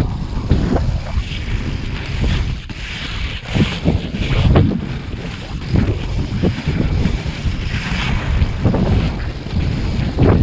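Wind buffeting an action camera's microphone over the rumble of 80 mm urethane inline skate wheels rolling on rough asphalt, with irregular louder swishes from the skating strides.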